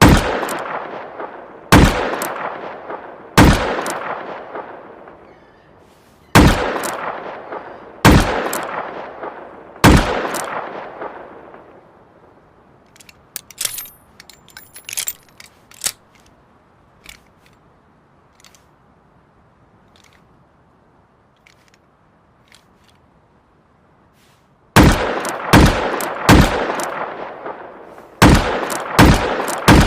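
High-calibre revolver firing single shots, each with a long echoing tail. Six shots come at an unhurried pace in the first ten seconds, then a stretch of small metallic clicks and clinks, then six more shots near the end.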